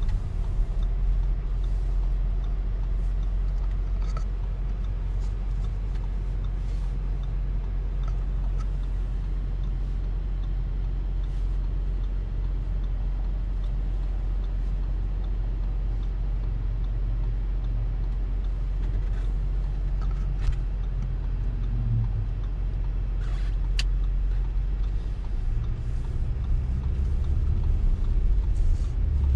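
Steady low rumble of engine and road noise inside the cabin of an Audi Q7 SUV while it is driven.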